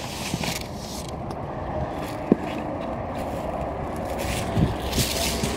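Scraping and rustling of boxed figures and packaging being handled, over steady outdoor background noise, with one sharp click a little over two seconds in.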